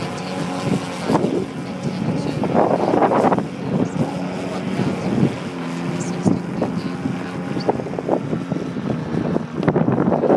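Radio-controlled 3DHS Extra 300 SHP aerobatic plane flying overhead: its motor and propeller drone on, the pitch shifting as it manoeuvres. Gusty wind buffets the microphone in loud noisy swells.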